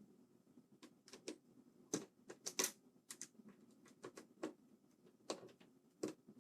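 Irregular small clicks and taps of a screwdriver and small screws being handled on a keyboard case as it is screwed back together, with the loudest cluster between about two and three seconds in.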